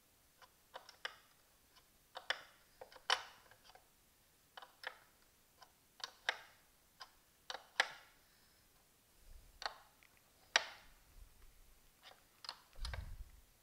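Nyloc nut being tightened onto a carriage bolt with a 9/16-inch wrench: irregular sharp metal clicks, about one or two a second.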